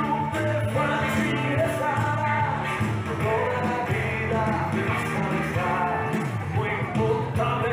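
A song with singing over a bass line, played over a PA loudspeaker.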